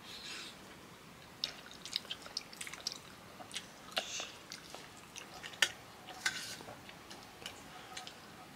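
Eating sounds: a scattered run of small sharp clicks and wet mouth noises of food being handled on a plate and chewed.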